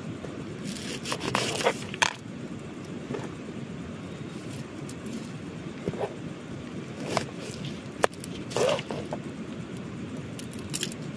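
Kitchen knife cutting an onion on a plastic cutting board and the onion's papery skin being peeled: scattered short scrapes and clicks, one sharp click about eight seconds in, over a steady background noise.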